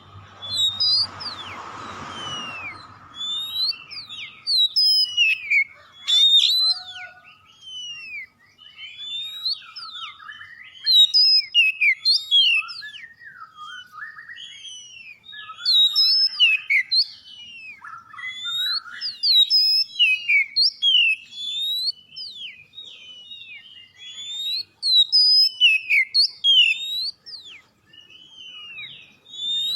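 Oriental magpie-robin singing a rapid, varied song of whistled notes and quick sweeping glides, phrase after phrase without pause: a lively, full 'gacor' song of the kind used as a master or lure recording to get other magpie-robins singing. During the first few seconds a hissing noise with a steady hum and a low drone runs under the song.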